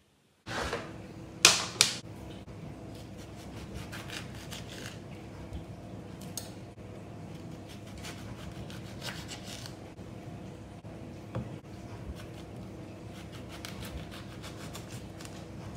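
Kitchen knife cutting oranges in half on a plastic cutting board: repeated light knocks and scrapes of the blade through the peel and onto the board. Two louder knocks come about a second and a half in, all over a steady low hum.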